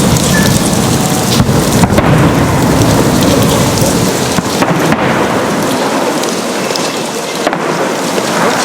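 Fireworks salute: a loud, dense, continuous rumble of bursting shells and crackle, the deep booms thinning out about halfway through.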